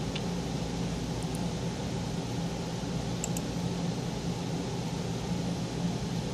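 Steady fan-like hum and hiss of room ventilation or machinery, with a few faint clicks.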